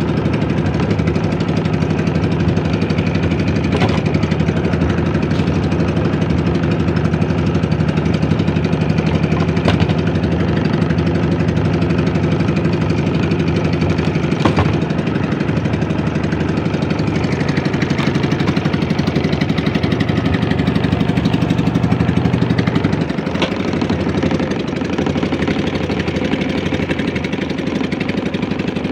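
A small outrigger fishing boat's engine running steadily under way, a constant putter, with its note changing and dropping a little in level late on.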